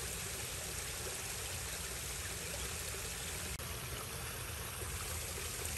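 Steady noise of running water on a large outdoor pond, with rain falling on the water surface.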